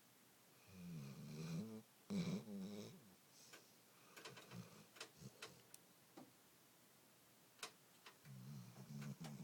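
Dog snoring: two snores back to back in the first three seconds, a quiet stretch with a few faint clicks, then another snore starting near the end.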